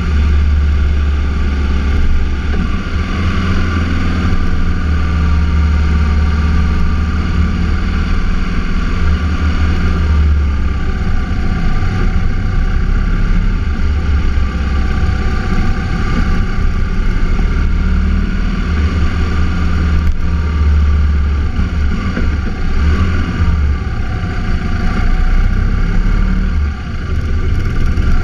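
Vehicle engine running while driving, over a steady low rumble, its pitch rising and falling several times.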